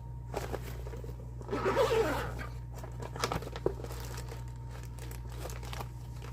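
Rustling and crinkling with small scattered taps and clicks as thread and needlework are handled close to the microphone, busiest about a second and a half to two seconds in, over a steady low hum.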